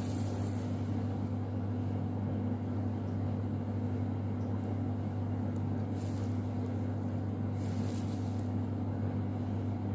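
A steady low electrical hum, with a few brief faint hisses over it.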